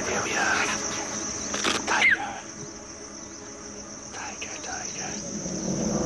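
Steady high-pitched insect chorus, with faint voices in the first two seconds and a short loud sound with a rising pitch about two seconds in.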